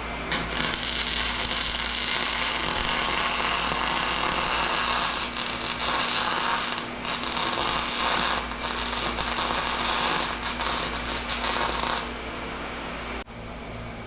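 MIG welder arc crackling and sizzling as weld bead is laid, with the machine turned up to high. It runs in a few stretches with short breaks and stops about twelve seconds in.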